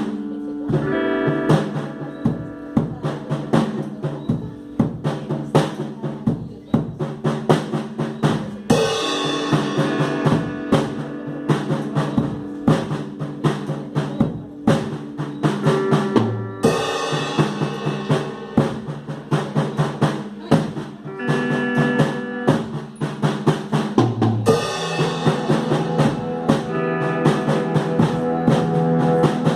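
Rock band playing: a drum kit keeps a steady beat with bass drum and snare hits under sustained, repeating chords, which shift to a new chord about every eight seconds.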